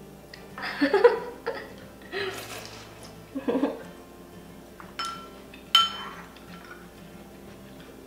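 Soup slurped from a spoon several times, then a soup spoon clinks twice against a porcelain bowl, each clink ringing briefly.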